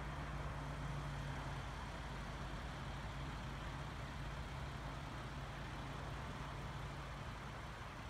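A motor vehicle engine idling steadily, a low hum with a constant pitch.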